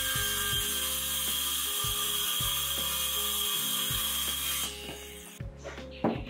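Cordless circular saw cutting through a timber board, running steadily under load, then winding down and stopping about four and a half seconds in.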